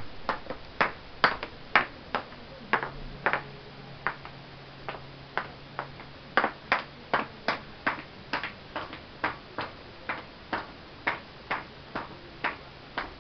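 Oversized women's high-heeled sandals clacking on a hard floor as a toddler walks in them: a long series of sharp, uneven footsteps, about two a second.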